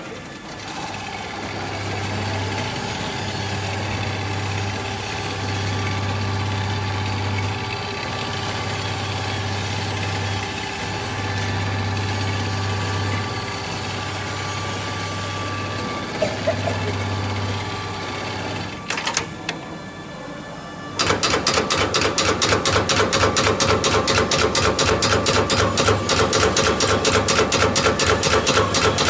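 Industrial sewing machine: its motor hums with a low drone that comes and goes in spells of a few seconds, then about two-thirds of the way in it starts stitching at speed with a loud, fast, even clatter.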